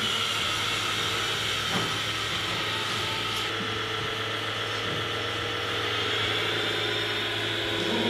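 Radio-controlled 6x6 tipper truck's electric drive whining steadily as it drives, over a steady hiss and low hum, with one short knock a little under two seconds in.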